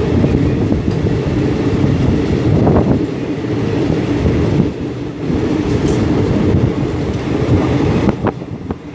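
Rapid passenger train running along the track, heard from aboard a carriage: a loud, steady rumble of wheels on the rails with a few knocks, easing slightly near the end.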